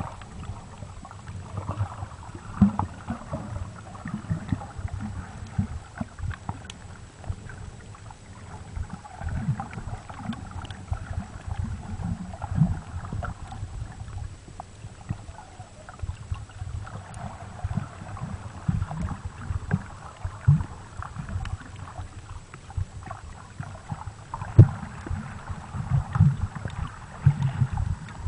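Muffled underwater sound picked up by a camera held under the water: irregular low rumbles and knocks of water moving against the camera, with a hiss that swells and fades every several seconds.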